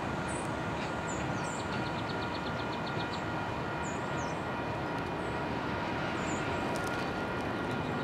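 Diesel locomotive running steadily as it approaches slowly down the track.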